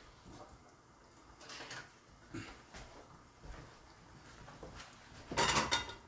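Faint kitchen handling noises, then near the end a short, loud scraping rub as the frying pan is moved on the electric stove.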